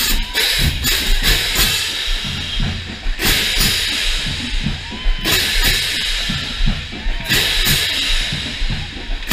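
Marching drumline playing a cadence: drums beat steadily while the crash cymbals clash close by, with two long, ringing cymbal crashes starting about three seconds in and again about seven seconds in.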